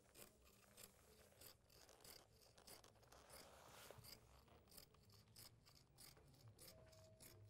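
Faint, steady snipping of scissors cutting through two layers of fabric at once, about three snips a second.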